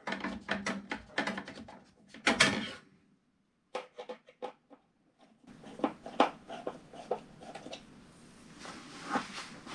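Screwdriver tightening the mounting screws of a water heater's vent blower assembly: a run of quick clicks and small metal taps, broken by about a second of silence three seconds in, then more scattered clicks.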